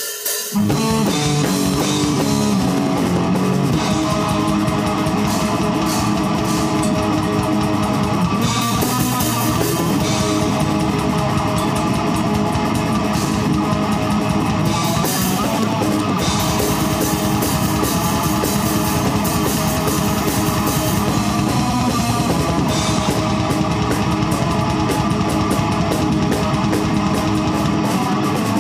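Live extreme metal band playing a song: distorted guitars over very fast, dense drumming with rapid bass-drum strokes. The music starts suddenly at the very start.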